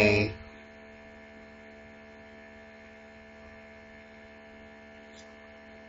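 Steady electrical hum over a faint hiss: the recording's background tone in a pause between words.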